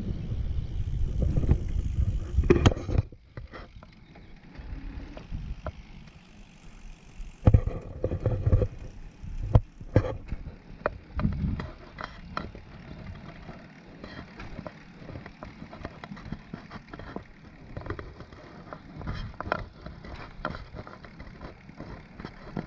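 Riding a recumbent along a trail, with no talking: a loud low rumble for about the first three seconds, then quieter rolling noise with scattered clicks and rattles.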